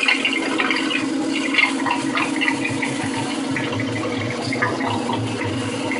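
Water rushing and splashing through an opened sewer drain pipe, sent down the line to test a broken sewer, over a steady low hum.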